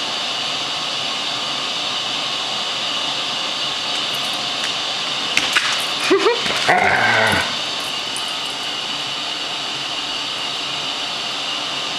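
Airedale terrier, worked up over a mop head, vocalising briefly about halfway through: a short rising yip, then a longer, lower call. A few light clicks come just before, over a steady background hiss.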